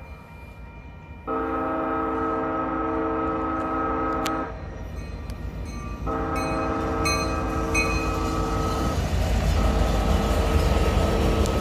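Union Pacific diesel locomotive's multi-chime air horn sounding long blasts for a grade crossing as the train approaches. A low rumble of the locomotives' diesel engines and train grows near the end as they pass close by.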